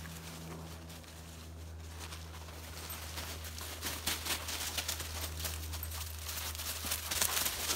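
Dogs' paws crunching and rustling through dry leaf litter as they run, a patter of crackles that grows denser and louder from about three seconds in, over a steady low hum.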